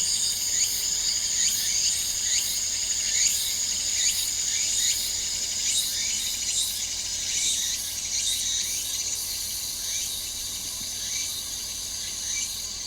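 A steady high-pitched insect chorus with many short, quick falling chirps repeating over it.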